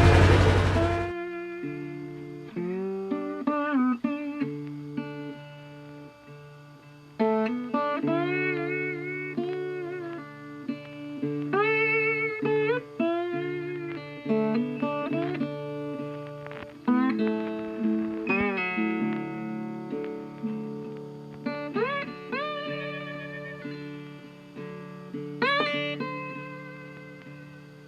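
Background music of a plucked guitar, with notes that bend and slide in pitch. Louder engine-like noise at the start cuts off suddenly about a second in.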